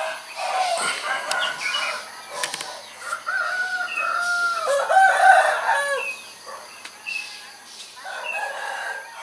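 Roosters crowing, several long calls overlapping, the loudest in the middle and another near the end.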